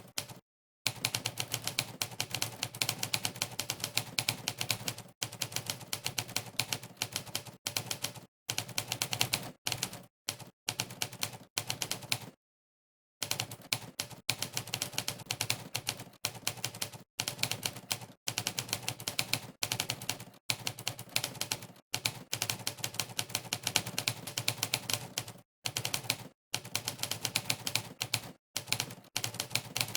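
Monkeytype's typewriter key sound effect: one sampled typewriter key strike per keypress, coming in fast continuous runs of typing. The runs are broken by brief dead-silent pauses, the longest a little under halfway through.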